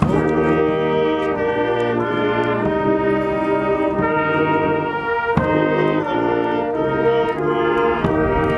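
Brass band of trumpets and tubas striking up a slow tune in held chords, the chords changing every second or two.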